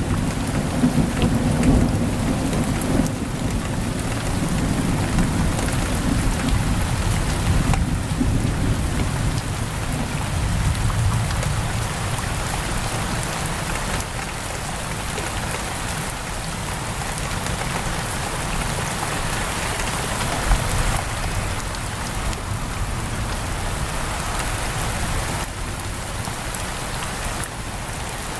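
Heavy rain pouring steadily against a window, with a low rolling rumble of thunder through the first half that fades away.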